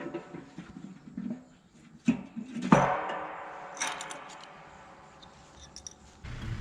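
A few small knocks, then a sharp hit and a loud bang whose ringing dies away over about three seconds.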